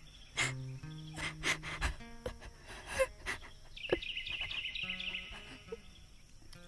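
Soft background film music with held notes, and a short twitter of bird chirps about four seconds in.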